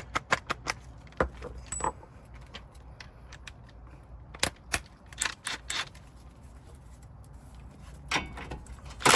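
Socket ratchet clicking in quick, even strokes as a 17 mm bolt is loosened, then scattered metallic clinks and knocks of the wrench and loose parts, loudest near the end.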